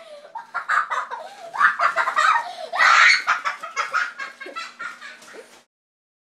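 Children laughing, loudest about three seconds in, cutting off abruptly a little over five seconds in.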